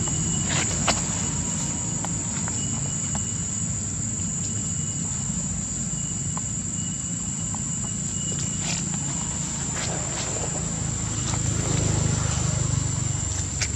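Insects droning in one steady high-pitched tone over a steady low rumble, with scattered light clicks and rustles from monkeys moving on dry leaf litter.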